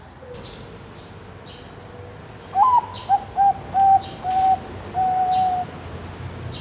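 Zebra dove (Bangkok-bred perkutut) singing one cooing phrase about two and a half seconds in: a rising opening note, four short clipped coos, then a longer held closing coo.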